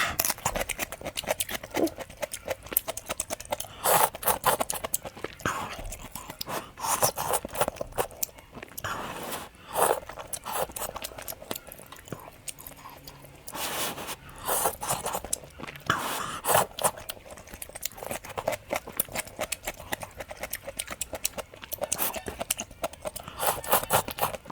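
A person eating close to the microphone: chewing and biting, with many short crisp clicks and scrapes coming irregularly.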